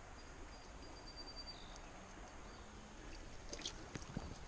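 Quiet creek-side ambience: a faint steady hiss, a thin high whistle-like tone during the first second and a half, and a few soft clicks near the end from handling a small smallmouth bass while unhooking it.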